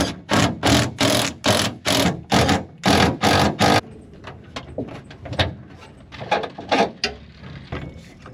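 Knocking by hand on a 1972 Chevy Nova's steel gas tank to judge the fuel level by ear: about nine sharp knocks in quick succession, then lighter, irregular taps. The tank turns out to be full.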